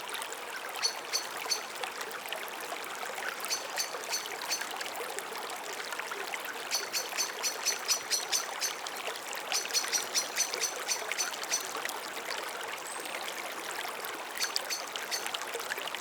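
Stream water flowing steadily, a constant trickling rush. Over it come five runs of short, high-pitched chirps in quick succession; the longest runs fall in the middle.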